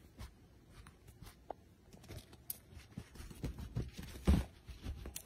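Irregular soft thumps and rustling of a bed comforter as a kitten jumps and bats at a wand toy. The thumps come sparsely at first, then thicker and louder from about two seconds in, the loudest about four seconds in.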